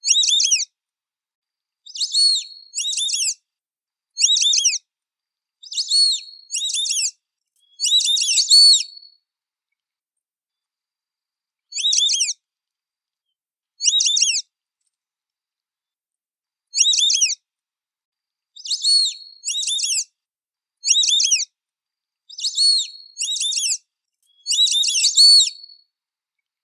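White-faced whistling duck (irerê) giving its high, clear whistled call again and again. Each call is a short run of sliding whistle notes, and the calls come singly or in quick pairs every second or two, with a longer pause about a third of the way through.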